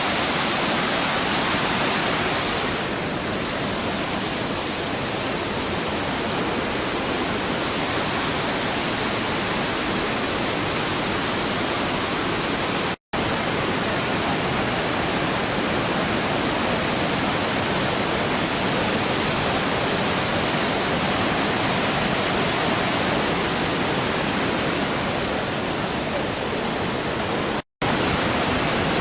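Waterfall: a steady, loud rush of falling water. It is broken twice by a split-second of total silence, about halfway through and near the end.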